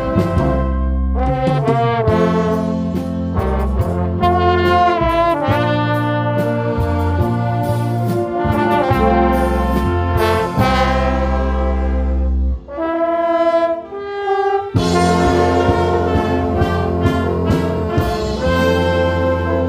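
Live band playing an instrumental passage, with a brass-like lead melody over bass and drums. About thirteen seconds in, the bass and drums drop out for a couple of seconds under the melody alone, then the full band comes back in.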